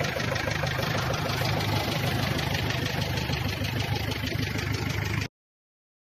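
Vehicle engine idling with a steady low rumble; it cuts off suddenly a little after five seconds in.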